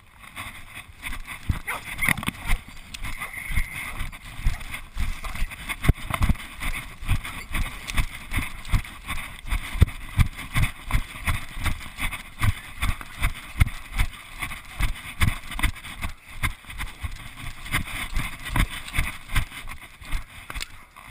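Footsteps walking briskly through dry leaf litter, about two steps a second, each step a dull thump with a rustle of leaves.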